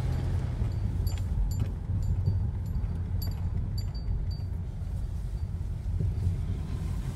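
Steady low rumble of a car's engine and road noise heard from inside the cabin while driving, with a few scattered light clicks.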